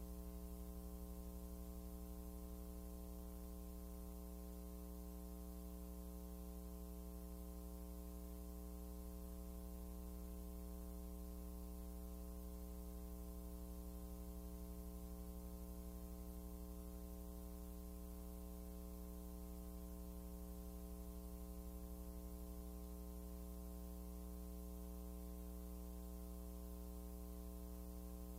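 Steady electrical mains hum with a ladder of higher overtones, unchanging in pitch and level.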